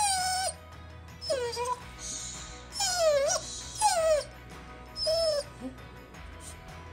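Bernese mountain dog puppy whining in five short, high-pitched yelps about a second apart, each sliding down in pitch and curling back up.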